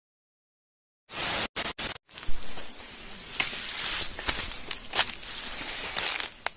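About a second of silence, then three short bursts of hiss, then outdoor ambience: a steady high-pitched insect drone with scattered crackling footsteps in undergrowth.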